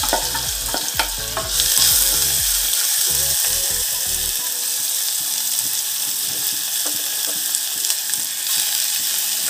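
Chopped onion sizzling as it fries in hot ghee with cumin seeds in a small aluminium pan, a steady hiss. A few clicks come early as the onion is tipped in and the pan is tapped, and the hiss grows louder about a second and a half in.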